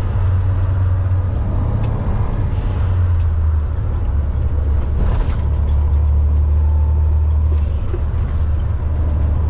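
Semi-truck diesel engine running steadily at highway speed, heard from inside the cab as a deep drone with road noise.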